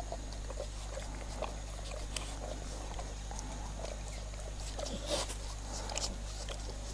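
A pit bull-type dog licking and mouthing at a plastic tongue-cleaning brush smeared with a meaty gel: irregular wet smacks, slurps and mouth clicks.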